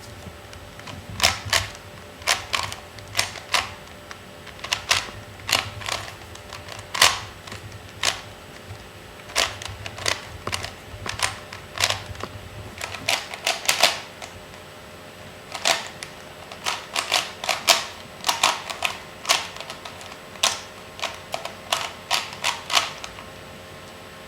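A plastic 3x3 Rubik's Cube being turned quickly during a speed solve: irregular runs of sharp clacks as the layers are turned, broken by short pauses.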